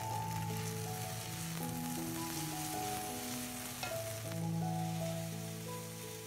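French beans and pork stir-frying in a wok, sizzling steadily. Background music plays over it, a slow melody of held notes.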